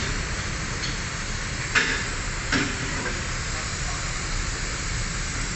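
Steady hiss with two short scraping noises, about two and two and a half seconds in, as the stuck oil pan of a Toyota automatic transmission is pried and worked loose by hand.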